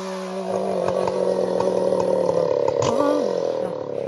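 Chainsaw engine running at high revs, its pitch sagging slowly as if under load, with a brief rise and fall in pitch about three seconds in.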